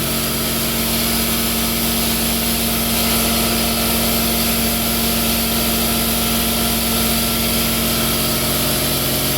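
Quincy 5 hp two-stage air compressor running steadily, pumping up the tank, an even machine hum that does not change.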